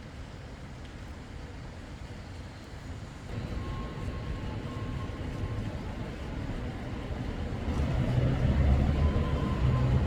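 City traffic running past, with a low engine hum. It gets louder about three seconds in and again near the end as a vehicle comes close.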